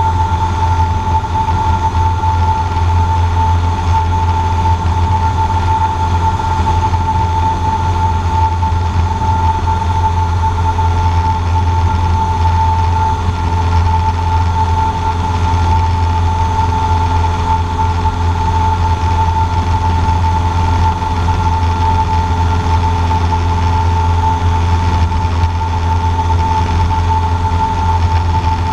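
Cessna 150J's Continental O-200 four-cylinder engine and propeller running steadily at climb power, heard inside the cabin as a deep drone with a steady high whine over it.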